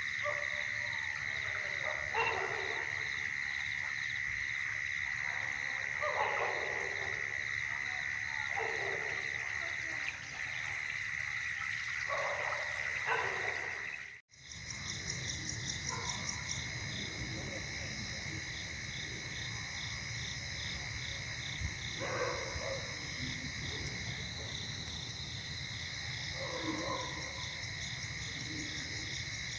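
Night insect chorus: a continuous high trill with crickets chirping in a steady rhythm above it. Faint murmuring voices come and go underneath, over a low rush of flowing water, and all sound drops out for a moment about halfway.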